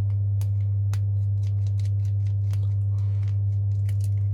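Light, irregular clicks and small metallic ticks of an Allen key turning the tiny screws on an AAP-01 airsoft pistol's nozzle housing, and of the small parts being handled. Under them runs a loud, steady low hum.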